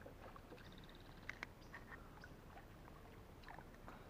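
Near silence: faint outdoor ambience on still water, with a few soft clicks about a second and a half in.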